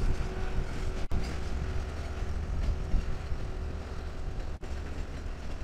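Passenger train rolling past, a steady low rumble of the diesel locomotive and passenger cars on the rails, with a faint steady tone fading away over the first few seconds.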